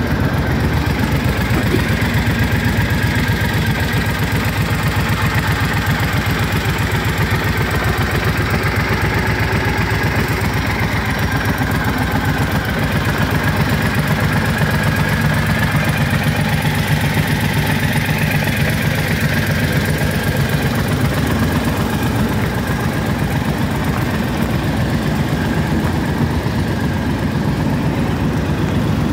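Triumph Thunderbird LT's 1,699 cc parallel-twin engine idling steadily.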